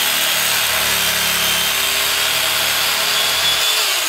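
Electric knife running steadily with a high whine, its reciprocating blades sawing down through thick egg-crate foam. It winds down near the end as the cut is finished.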